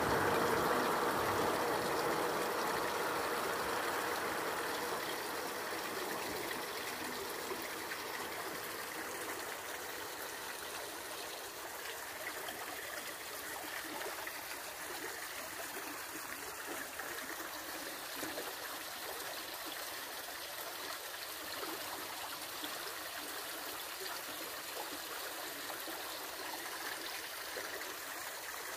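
Tinguiririca River's water rushing steadily. It is loudest at first and settles to an even level after about six seconds.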